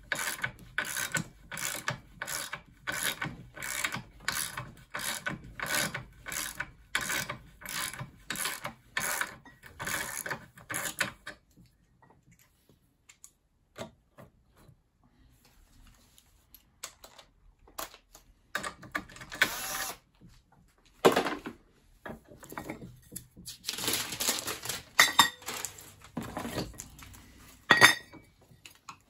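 Socket ratchet clicking steadily, about two clicks a second, as it unscrews the brass valve from an aluminium nitrous oxide cream charger bottle; the clicking stops about eleven seconds in. Later come irregular knocks and clatter of the bottles and tools being handled, with a couple of sharp loud knocks.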